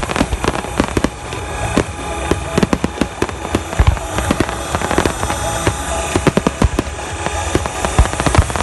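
Fireworks display: many sharp bangs of bursting shells in quick, irregular succession, over recorded music playing on loudspeakers.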